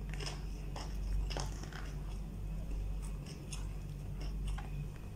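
Close-up eating sounds: chewing, with small scattered clicks and crackles as fingers pick food from a plastic takeout tray, over a steady low hum.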